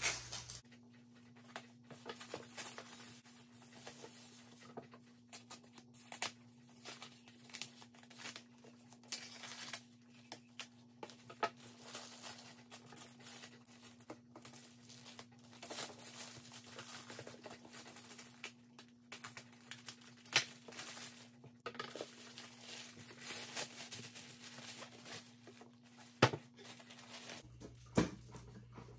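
Plastic and foam packaging wrap rustling, crinkling and tearing in irregular bursts as it is handled and pulled off a boxed electric die-cutting machine, with a few scissor snips through the plastic. A faint steady hum runs underneath.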